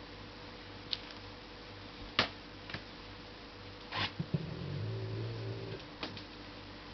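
LG 12B8ND front-loading washing machine running with a steady hum, punctuated by about six sharp, irregularly spaced clicks. This is the extraneous clicking during spin that the owner hears from the lower right side, with laundry in the drum but not with it empty.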